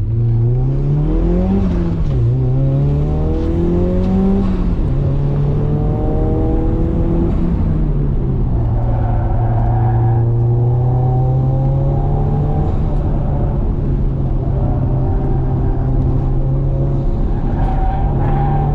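Ford Laser TX3's turbocharged four-cylinder engine driven hard. The engine note climbs and drops back twice in the first five seconds as it runs through gear changes, then holds a fairly steady note under load for the rest of the stretch.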